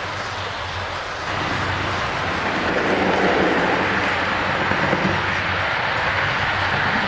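Model railway express train (an H0 E645 electric locomotive with coaches) running on the layout's track: steady running noise of the wheels on the rails with a low motor hum, louder from about a second in as the train passes close.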